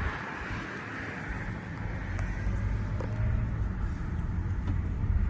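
Car running: a steady low rumble that grows a little louder about a second and a half in.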